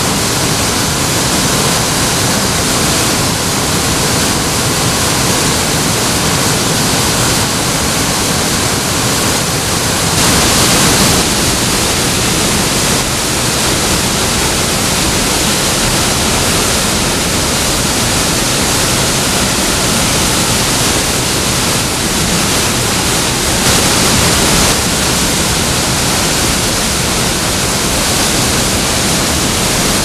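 Mountain waterfall pouring into a rock plunge pool: a loud, steady rush of falling water, swelling slightly about ten seconds in and again near the end.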